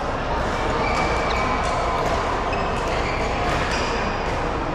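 Badminton play in a large sports hall: several sharp clicks of rackets striking shuttlecocks and short high squeaks of court shoes over a steady din.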